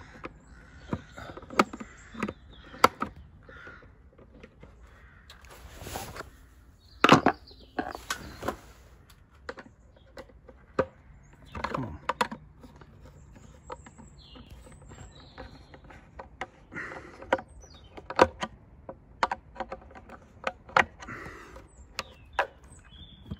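Irregular sharp clicks and knocks with a few scraping swishes, from hands working at the cover of a plastic outdoor wall light fitting to get it open.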